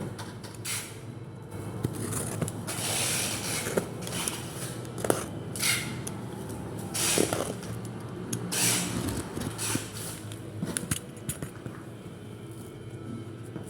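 Packaging being handled and opened: bursts of rustling and crinkling with scrapes and a few sharp clicks and knocks, over a steady low hum.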